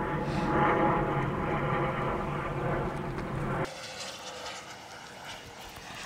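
Honeybees buzzing close by, a steady hum from a brood frame covered in bees. The buzz drops off suddenly a little past halfway, leaving a fainter hum.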